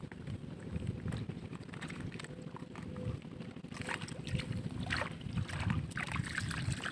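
Wind rumbling on the microphone outdoors, an uneven low buffeting, with a few faint short sounds in the second half.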